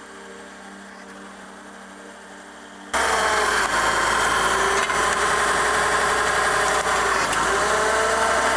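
A wood-processing machine running: a faint steady hum at first, then from about three seconds in a sudden, much louder, steady mechanical running noise.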